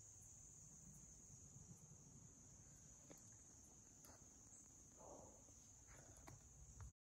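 Faint, steady high-pitched insect chorus of crickets, with a few soft clicks and a brief rustle from the camera being handled; the sound cuts off suddenly near the end.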